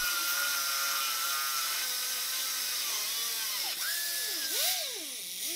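Small handheld disc grinder grinding metal: a steady high hiss with a whining tone. In the second half the whine dips and climbs again and again as the disc is pressed onto the metal and eased off.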